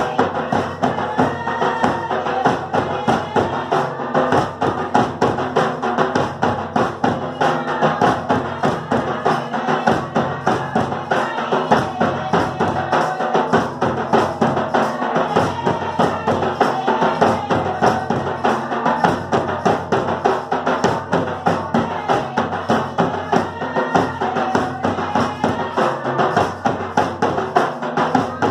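Folk dance music led by a shoulder-slung double-headed drum beaten in a quick, steady rhythm, with a melody held over it.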